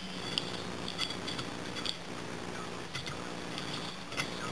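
Dachshund chewing on a steel chair rung: its teeth click and clink against the metal bar in irregular sharp ticks with a short metallic ring, about one a second.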